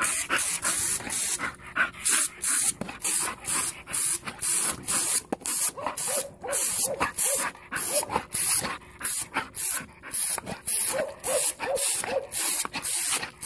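Dog panting rapidly close up, about two to three breaths a second, with a few faint whines near the end.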